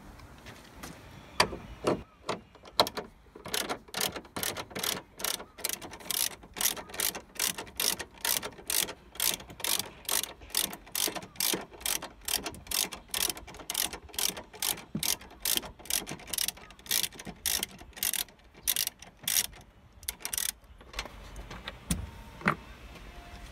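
Hand ratchet wrench clicking in a steady run, about three clicks a second, as a bolt is turned out. The run stops about 21 seconds in, followed by a couple of single clicks.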